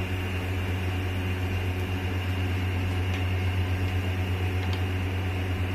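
A steady low mechanical hum with an even hiss over it, like a running motor or fan.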